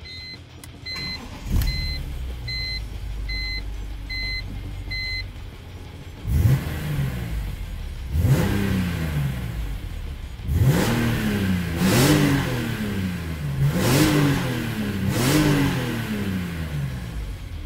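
BMW E46 M3's 3.2-litre straight-six on its stock exhaust starting about a second and a half in and idling, then revved hard six times in neutral, each rev rising sharply and falling back to idle. A steady beeping chime sounds over the start.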